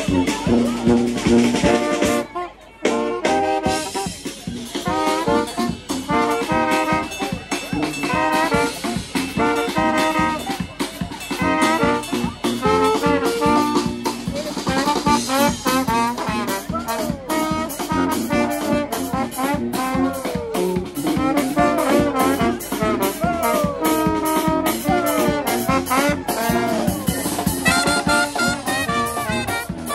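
Live brass band, with trumpets, trombones, saxophone, sousaphone and drum kit, playing an upbeat festive tune, with a brief break about two and a half seconds in before the band comes back in.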